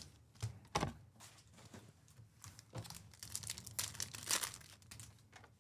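Plastic wrapping crinkling and tearing as a sealed box of trading-card packs is opened, in a run of crackly rustles with one sharp thump just under a second in.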